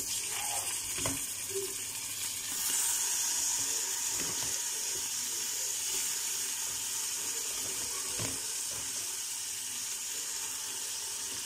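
Chunks of raw meat sizzling in hot fat with sautéed onion and garlic in an aluminium pot; the sizzle gets louder about two and a half seconds in. A wooden spoon knocks against the pot a few times as it stirs.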